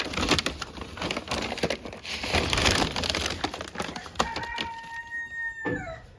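Scoop of layer feed poured into a chickens' food pan: a rattling, grainy hiss with many small clicks. About four seconds in, a steady high squeak lasting a second and a half, which drops in pitch as it stops.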